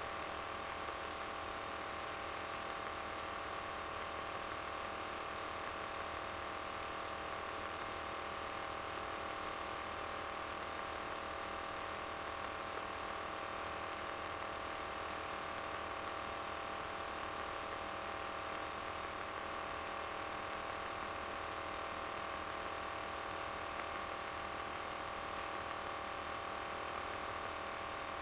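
Steady drone of a light aircraft's engine and propeller in flight, heard from inside the RV-9A's cockpit: an even rushing noise with a constant hum, unchanging throughout.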